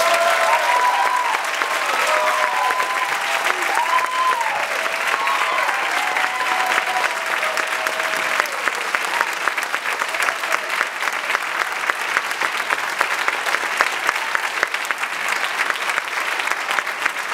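Audience applauding steadily, with voices cheering over the first several seconds.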